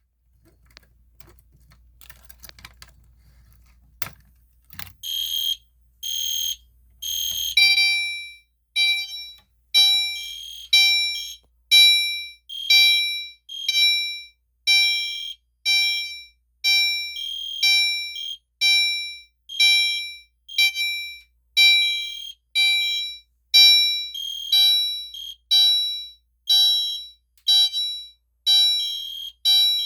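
Est Genesis and Gentex Commander 3 fire alarm horn strobes sounding together after being key-activated. A few faint clicks come first. Horn blasts start about five seconds in and settle into a loud, evenly pulsing pattern of about one short blast a second.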